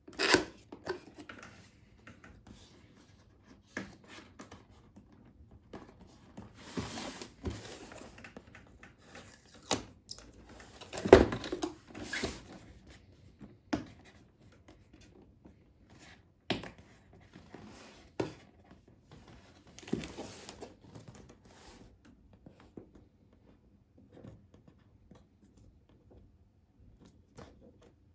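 Cardboard box being unpacked by hand: irregular tearing, rustling and scraping of the packaging with scattered clicks, loudest about eleven seconds in and sparser near the end.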